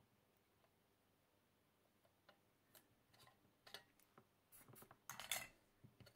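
Faint, scattered clicks and taps as a small printed circuit board with a metal coin-cell holder is handled on a desk. They start after about two seconds of near silence, and a denser cluster of louder clicks with a short scrape comes about five seconds in.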